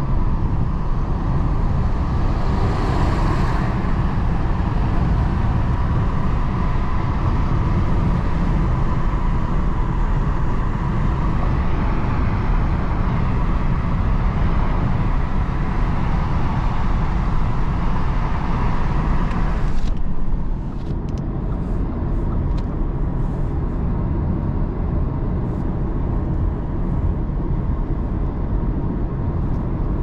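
Steady road, tyre and wind noise heard inside the cabin of a 2022 Audi A3 35 TFSI cruising on a highway, with its 1.5-litre turbocharged four-cylinder humming underneath. Brief extra hiss comes in a few seconds in. About two-thirds of the way through, the high hiss cuts off suddenly and the noise becomes duller and a little quieter.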